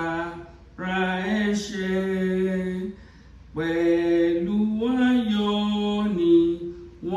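A woman singing a Yoruba hymn unaccompanied, one voice holding long, slow notes in phrases, with short pauses for breath about one second and three and a half seconds in.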